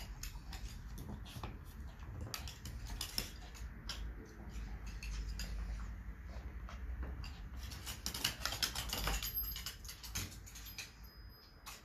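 Claws of a small dog clicking and pattering irregularly on a wooden parquet floor as it scurries about, with a thicker run of clicks a little past the middle.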